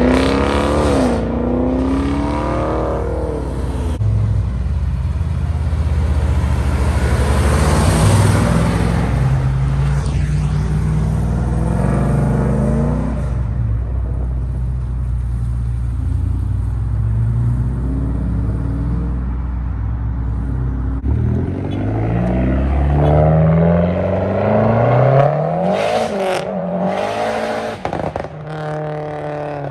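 Car engine running and being revved several times, its pitch rising and falling with each rev. The low steady rumble drops away about three-quarters of the way through.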